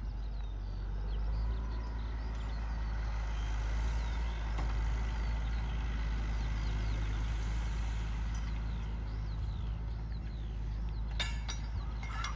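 Tractor engine running steadily while pulling a plough, a constant low rumble without changes in pace.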